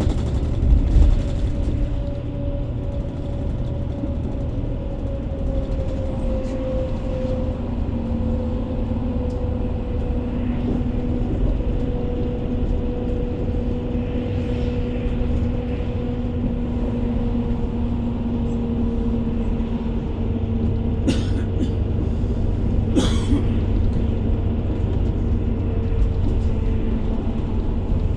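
A motor vehicle running steadily: a low rumble with a steady drone whose pitch slowly sinks. Two short sharp clicks come near the end.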